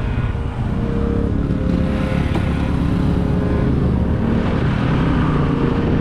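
Motorcycle engine running steadily while riding, growing a little louder over the first second.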